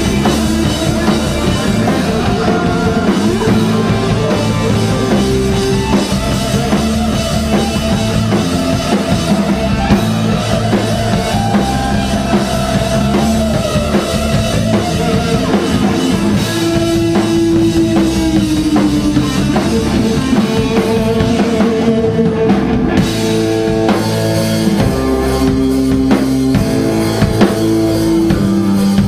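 A rock band playing live: drum kit, electric guitar and bass guitar, loud and steady throughout.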